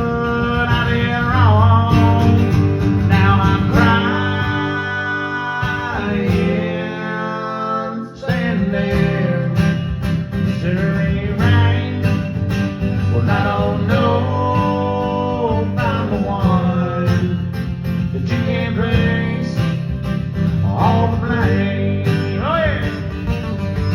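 Instrumental break in a country song: a lead guitar plays a solo with bending notes over strummed acoustic guitar and a bass line.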